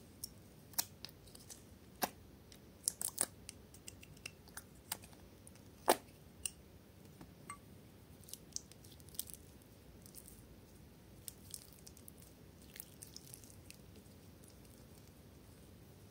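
Clear slime being squeezed and stretched by hand, giving scattered small sharp clicks and pops, busiest in the first few seconds and thinning out in the second half.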